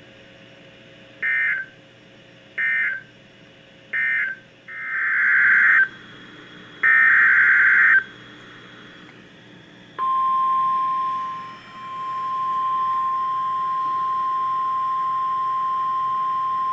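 NOAA Weather Radio SAME data bursts: three short bursts of screechy digital tones, then two longer, louder ones. These are the codes that close one alert message and open the next. About ten seconds in, the steady single-pitch 1050 Hz warning alarm tone starts and holds, announcing a warning.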